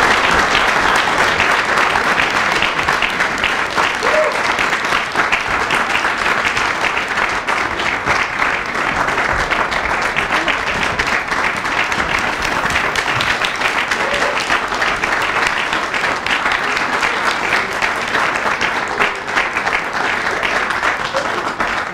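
Audience applauding steadily with dense clapping, beginning to die away at the very end.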